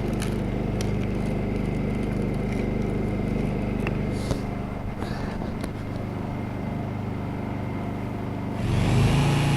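Honda portable generator's engine running steadily at idle. Near the end an electric rescue tool is switched on, and the generator's engine speeds up and gets louder as it idles up automatically to carry the load.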